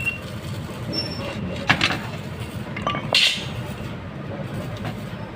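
Metal parts of a welded window frame knocking and clinking as they are handled: a few separate sharp strikes, the loudest about a third and about halfway in, over a steady low hum.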